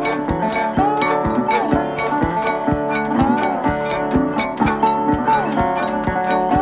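Background music: plucked guitar with bent notes over a steady beat.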